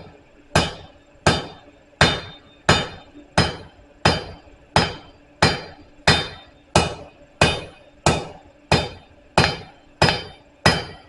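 A blacksmith's hammer striking hot steel on an anvil in a steady rhythm, about three blows every two seconds, with a ringing tail after each blow. The smith is drawing out a taper on round stock.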